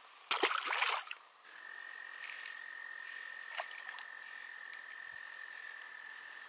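A small walleye splashes into the water as it is tossed back. About a second and a half in, a frog's long, steady, high trill starts and keeps going without a break.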